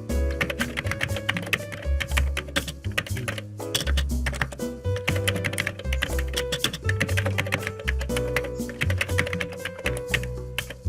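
Recorded computer keyboard typing sound effect: a dense, irregular run of key clicks, over background music with a shifting bass line.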